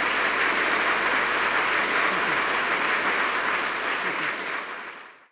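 Audience applauding: dense, steady clapping that fades out over the last second or so.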